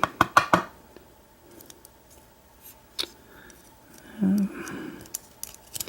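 Small sharp metal clicks and taps of pins and a pick being worked out of an American 1305 lock's cylinder as it is taken apart. There is a quick cluster of clicks at the start, a single sharp click about three seconds in, and a few more near the end.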